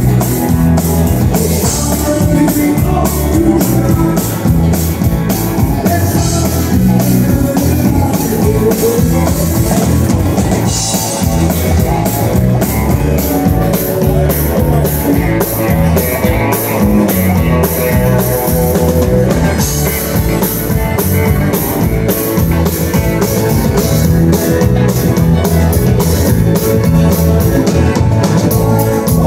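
Live country band playing at full volume: strummed acoustic guitar, electric bass, drum kit and a bowed fiddle together in a steady beat.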